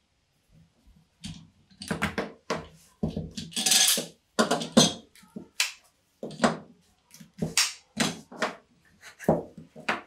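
Plastic spring clamps being taken off and set down, with plywood pieces knocking and sliding on the workbench: a string of sharp clicks and knocks, and a longer scraping sound about four seconds in.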